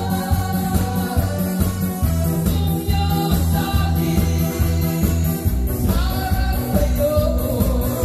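A male singer singing a Korean trot song into a microphone over a backing track with a steady dance beat, amplified through a PA system.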